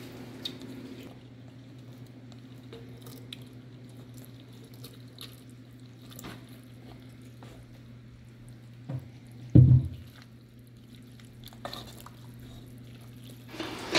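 Cooked macaroni tipped into a pot of cheese sauce and stirred in with a spatula: soft wet squishing and light scrapes, with one loud dull knock about two thirds of the way in. A steady low hum runs underneath.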